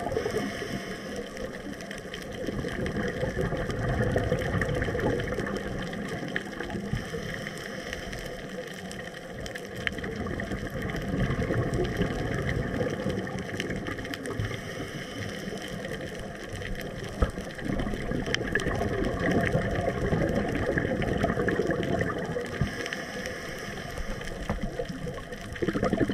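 Underwater sound of scuba divers breathing through regulators: exhaled bubbles gurgling and rushing, swelling and fading every several seconds in time with the breaths.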